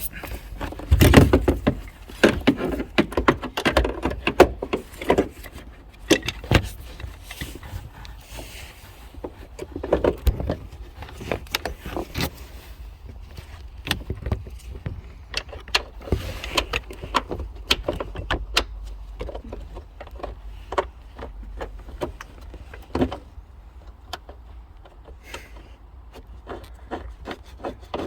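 Irregular clicks, clinks, knocks and scrapes of a replacement seat belt assembly being handled and fed into place inside a car, with metal fittings knocking against the trim.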